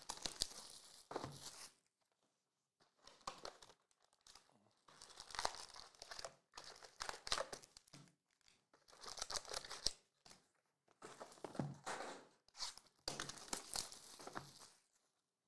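Plastic shrink wrap being torn off trading-card hobby boxes and crinkled, in a series of rustling, tearing bursts with short pauses between them.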